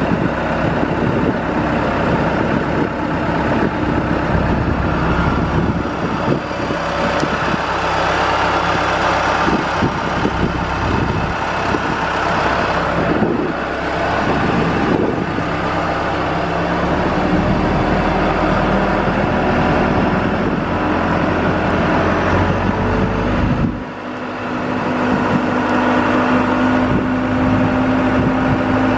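Telehandler engine running steadily, with a short dip in level about four-fifths of the way through.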